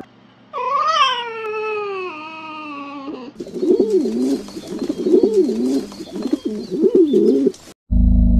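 A string of animal sound effects. First a long, falling, pitched cry; then a pigeon cooing in wavering repeated phrases for about four seconds. Near the end a loud, low dinosaur roar begins.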